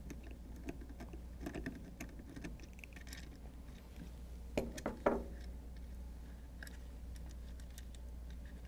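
Small clicks and light scraping of a screwdriver and hard plastic parts as the screw holding the piston to the drive assembly of a Fleck 5800 control valve is taken out, with two sharper clicks about halfway through, over a low steady hum.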